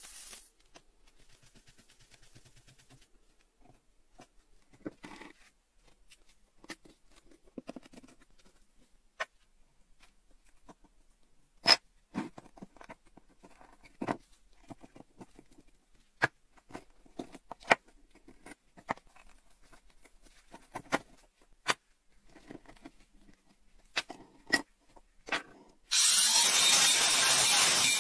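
Metal pick scraping and clicking at crusted rust on an old metal desk calendar, in short sharp scrapes and ticks, after a brief aerosol spray of WD-40 at the start. About two seconds before the end, a handheld rotary tool with a grinding stone starts and runs at speed against the metal, much the loudest sound.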